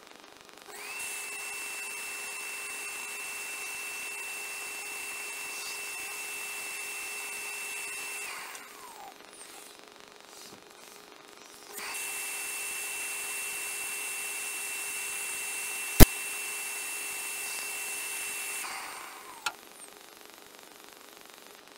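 Vacuum motor of a robot arm's hose-fed suction gripper running twice, each time for about seven seconds with a steady high whine that spins up at the start and winds down at the end. A sharp click comes partway through the second run, and a smaller knock just after it stops.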